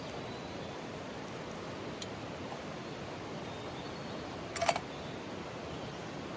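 Steady rushing of a mountain stream, with a faint click about two seconds in and a brief, sharp cluster of clicks about four and a half seconds in.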